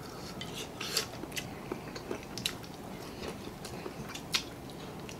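Close-up mouth sounds of someone biting into and chewing sauce-coated fried chicken: irregular short crunches and wet clicks, the strongest about a second in and again past four seconds in.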